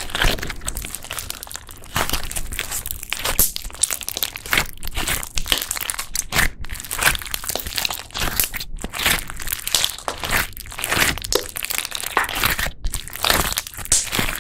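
Slime being squeezed and kneaded by hand, giving off a steady, irregular run of crackling, crunching and popping.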